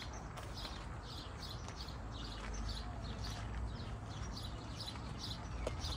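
Footsteps crunching on a gravel path at a steady walking pace, about three steps a second, over a low steady rumble.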